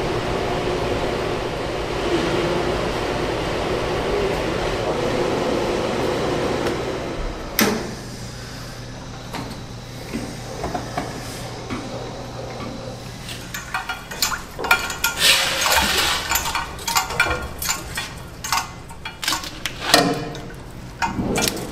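An industrial stainless steel agitator kettle running, its blades churning a thick batter with a steady mechanical noise, which gives way after a knock about seven seconds in to a quieter hum. In the second half, stainless steel pots and pans clatter and clink as the thick batter is poured from a pan into a pot.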